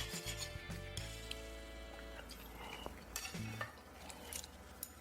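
Kitchen utensils stirring and clinking against pots or pans.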